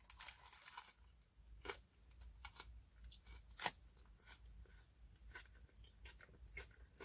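Faint chewing of a toasted sub sandwich: scattered small crunches and mouth clicks, one a little louder about three and a half seconds in.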